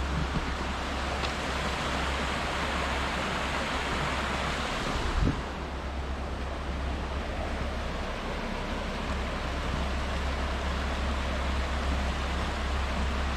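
Steady rush of flowing water from a mountain river or stream, with a single thump about five seconds in.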